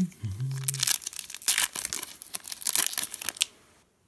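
Foil wrapper of a Yu-Gi-Oh Code of the Duelist booster pack being torn open and crinkled in the hands. Rapid crackling bursts go on for about three and a half seconds, then stop.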